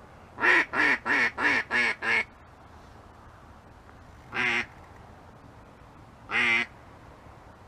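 Mallard hen duck call blown in a quick run of six loud quacks, then two single quacks a couple of seconds apart, calling to ducks overhead.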